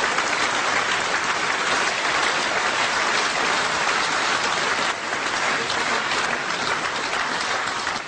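Studio audience applauding a punchline, a dense steady clapping that dies down near the end.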